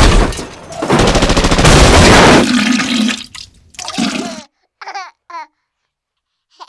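Logo sound effect: a loud rushing noise that dies away over about three seconds, followed by a few short, squeaky, wavering pitched sounds.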